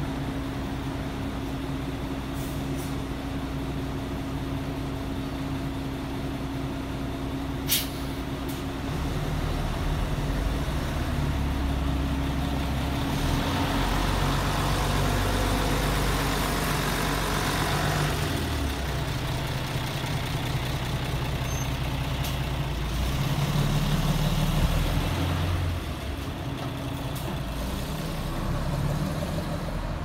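Diesel city bus idling at a stop, a single sharp click about eight seconds in, then the engine pulling harder as the bus moves off and drives away.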